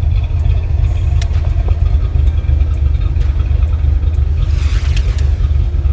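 Foxbody Mustang's 5.0 V8 idling steadily, with a few sharp clicks and a short hiss about five seconds in.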